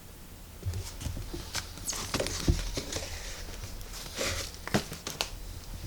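Scattered handling noises: irregular clicks, knocks and short rustles, as of packaging and objects being moved about.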